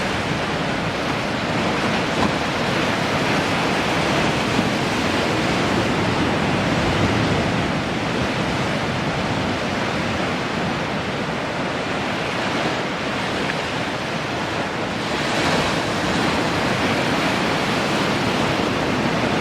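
Sea surf: a continuous rush of waves breaking and washing on the shore, swelling slightly about fifteen seconds in.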